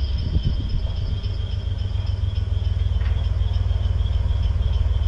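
1964 Chevy C10 pickup's engine idling with a fast, even low exhaust pulse.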